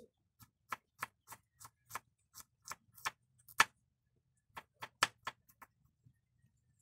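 Kitchen knife slicing garlic cloves on a bamboo cutting board: a run of sharp taps of the blade on the board about three a second, a pause of about a second, then a shorter, quicker run.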